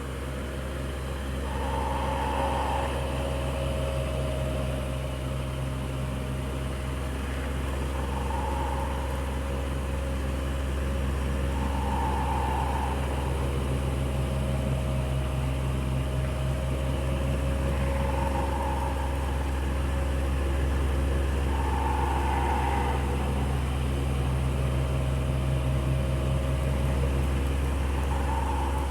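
Electric fan running steadily with a low motor hum, and a higher tone that swells and fades every few seconds.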